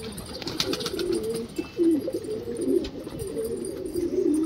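Domestic pigeons cooing, several birds overlapping in a steady run of low warbling coos, with scattered light clicks.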